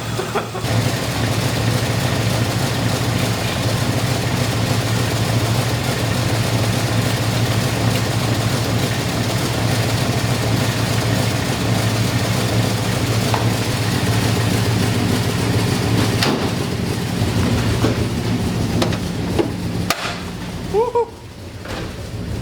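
V8 engine in a Datsun 280Z running steadily at idle with its freshly rebuilt carburetor. The engine note changes about two-thirds of the way through, followed by a few sharp knocks and a brief rising squeak near the end.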